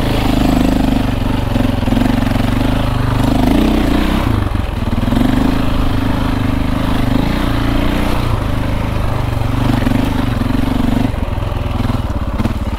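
KTM 450 EXC enduro dirt bike's single-cylinder four-stroke engine running steadily at low-to-moderate revs, the throttle easing off briefly a few times.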